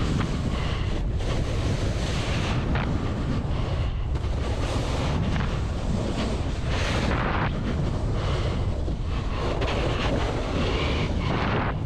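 Wind buffeting a camera microphone as a Jones Hovercraft splitboard, ridden as a snowboard, slides fast down a snow slope. The hiss of the board on the snow swells and fades every second or two through the turns.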